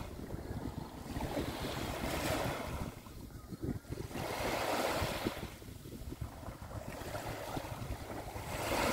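Small waves breaking and washing up a sandy shore, the hiss of each wash swelling about every three seconds. Wind rumbles on the microphone underneath.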